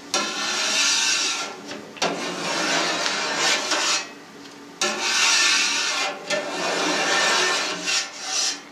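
A long metal knife blade scrapes along the metal cheese pan as it cuts set rennet curd in vertical strokes. There are about four long scraping strokes of a second or two each, with short breaks between them.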